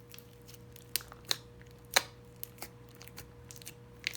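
Crunchy slime being squeezed and worked by hand, giving scattered sharp pops and crackles, the loudest about two seconds in.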